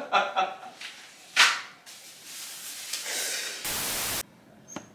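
TV static transition effect: a hiss swells, then turns into a loud burst of white-noise static about three and a half seconds in that cuts off abruptly after about half a second. A short swish comes about a second and a half in.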